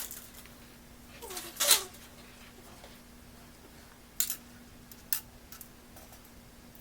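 Two sharp clicks about a second apart from screws and small hardware being handled while fitting parts into a PC case, after a brief vocal sound; a faint steady hum runs underneath.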